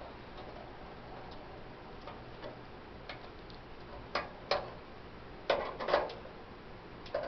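Light clicks and knocks of Coleman camp-stove parts being handled and fitted into place. There are two clicks about four seconds in, then a quicker cluster of louder knocks about a second later.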